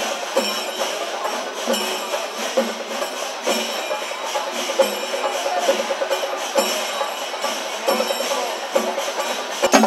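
Kerala temple percussion ensemble (melam) playing: hand cymbals clash continuously over drum strokes keeping an even beat about twice a second. In the last moment the drum strokes come in louder and sharper.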